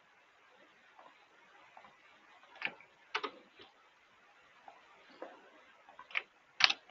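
Scattered clicks of a computer mouse and keyboard: about a dozen short, sharp ticks at irregular intervals, the loudest a little over two and a half seconds in and near the end.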